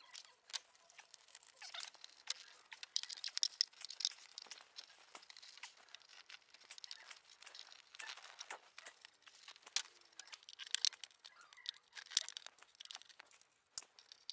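Dry crackling and crinkling with scattered small clicks, as the cover of an old Rover P6 seat is prised off by hand and its perished foam crumbles.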